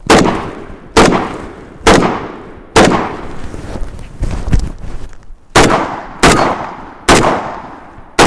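Shotgun firing in rapid succession in a practical shooting stage: seven loud shots, each with a ringing tail. The first four come about a second apart; after a pause of about two and a half seconds with a short knock, three more follow faster, about 0.7 s apart.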